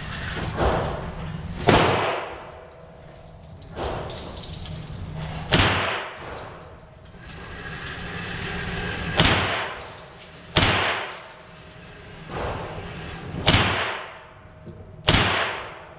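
A 9mm AR-15-pattern carbine (Foxtrot Mike FM-9 upper) firing 115-grain FMJ rounds in slow, deliberate single shots, six in all, a second and a half to four seconds apart. Each shot is a sharp crack that rings on in the echo of an indoor range, with softer knocks in between.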